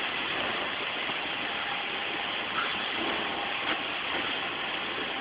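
Automatic grain and seed filling-and-packing machinery running with a steady mechanical noise and a faint steady tone, with one sharp click a little past halfway.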